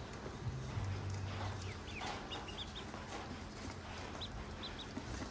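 Newly hatched ducklings peeping in short, high chirps, several in a cluster about two seconds in and more near the end, with light tapping of bills pecking at feed in a metal basin. A low hum comes and goes underneath.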